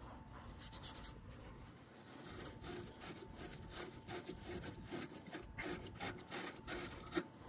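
Faint scratchy rubbing of a copper pipe stub being scrubbed clean by hand, in quick irregular strokes, several a second, starting about two seconds in: the joint being prepared for flux and soft solder.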